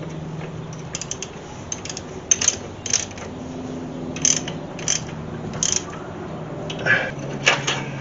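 Mechanical ratcheting and clicking: irregular sharp clicks every half second or so over a low steady hum.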